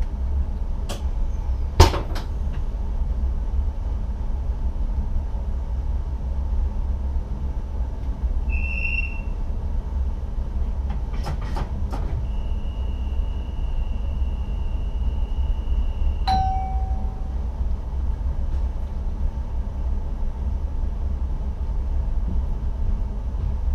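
NS ICM (Koploper) electric train running, heard inside the driver's cab as a steady low rumble with sharp clicks. Electronic cab tones sound over it: a short high beep, then a longer steady high beep lasting a few seconds that cuts off with a click and a brief lower tone.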